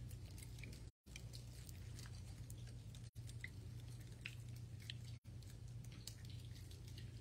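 Faint crinkling and clicking of prepackaged communion cups being peeled open, over a steady low hum. The sound cuts out completely for a moment about every two seconds.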